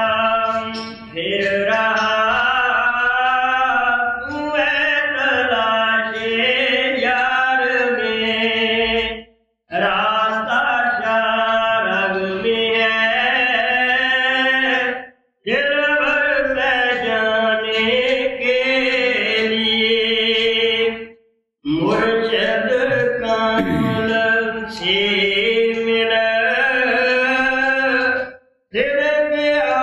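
A voice singing a devotional hymn in a chanting style, in long melodic phrases of about six seconds, each ending in a brief silence.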